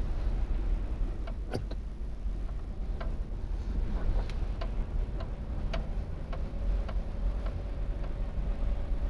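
A car rolling at walking pace over snow, heard from inside the cabin: a steady low rumble with sharp, irregularly spaced clicks, roughly one every half second to a second.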